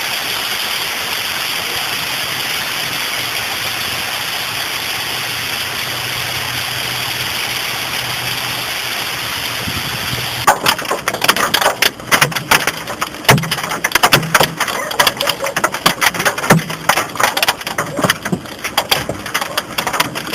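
Hail and rain pelting a car in a steady roar, then from about halfway through large hailstones strike the roof and windshield in loud, irregular cracks.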